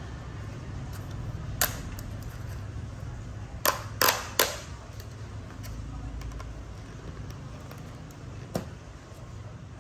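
Clear plastic salad container being handled and pried open: a few sharp clicks and crackles from the thin plastic lid, the loudest three close together about four seconds in. A steady low hum runs underneath.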